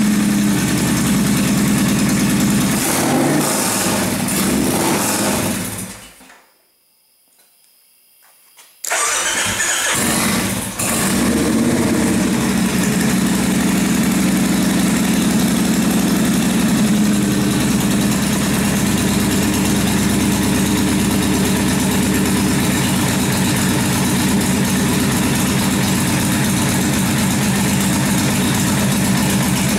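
Freshly rebuilt Kawasaki 1600 Marauder V-twin running on its first start-up. About five seconds in it fades and stalls, then after a short quiet it is restarted, catches with some revving, and settles to a steady idle. It is reluctant to idle, typical of a newly rebuilt engine not yet set up.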